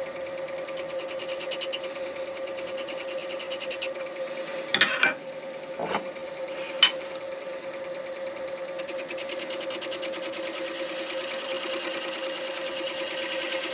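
Midi lathe running with a steady hum while a turning tool cuts the spinning acrylic pen blank, giving two bursts of fast, even ticking early on and a steadier fast scraping over the last few seconds. A few sharp knocks come around the middle.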